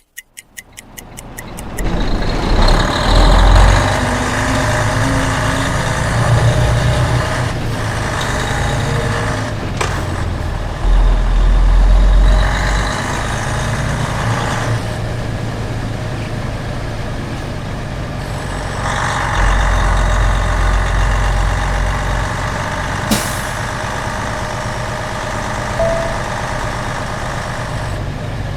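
Heavy truck on the move: steady engine and road noise that fades in over the first two seconds, with a deep rumble swelling louder a few times. A brief sharp click or hiss comes near the end.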